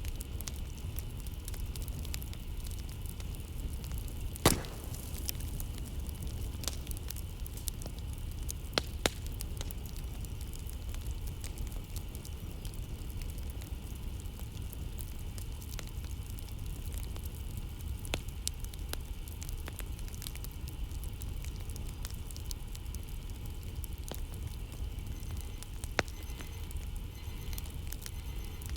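Campfire crackling: scattered pops and snaps over a steady low rumble, with one louder pop about four seconds in.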